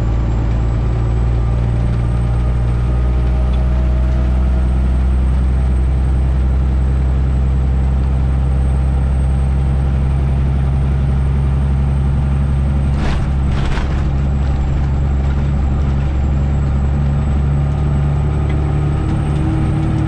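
Detroit Diesel 12.7 engine of a Freightliner Classic XL semi truck running steadily, with two short hisses of air about two-thirds of the way through.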